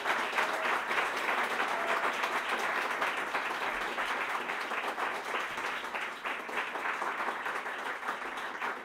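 Audience applauding steadily after a live performance, many hands clapping together.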